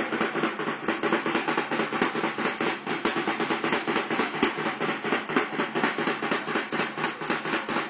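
Rapid, steady drumbeat, a snare-like cadence of several strokes a second, keeping time for a riot-shield formation.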